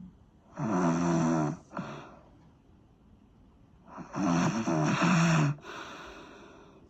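Snoring: two loud snores about three and a half seconds apart, each roughly a second long with a wavering pitch, and each followed by a fainter breath.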